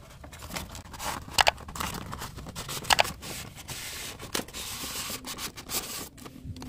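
Hands opening a toy's packaging: cardboard and plastic rubbing and scraping, with a couple of sharp clicks.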